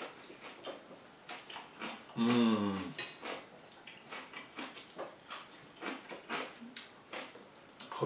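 Someone eating crunchy sauerkraut and red onion: irregular crunching and chewing clicks, with cutlery knocking on a plate and one sharp ringing clink about three seconds in. Just after two seconds a man gives a short low hum.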